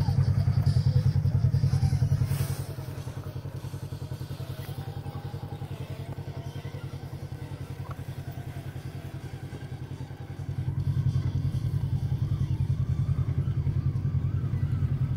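Side-by-side UTV engine running as the machine crawls up a steep rock chute, with a fast, pulsing low engine note. It drops off a couple of seconds in and picks up again about ten seconds in.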